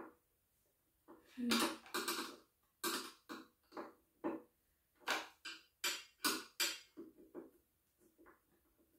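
An irregular run of sharp clacks and knocks as a monitor stand's parts are handled, fitted together and screwed on. The knocks start about a second in and die down to quieter handling near the end.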